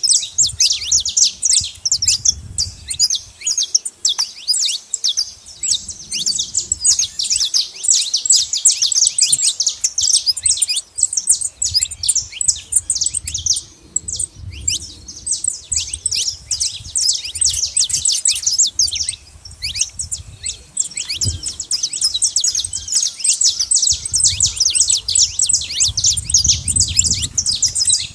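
Saffron finch chirping and singing in a dense, rapid run of high chirps, with a couple of brief lulls.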